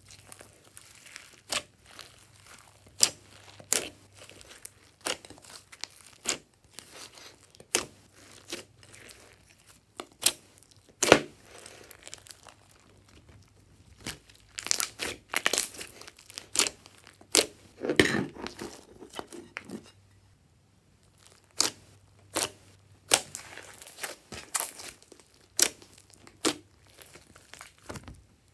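Glossy slime being kneaded and stretched by hand, making irregular sticky pops and clicks, with busier stretches of squelching and a brief pause about two-thirds of the way through.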